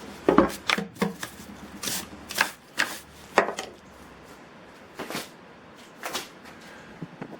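Irregular clicks and knocks of a DeWalt FlexVolt 60 V chainsaw being handled, coming several a second at first and then more sparsely.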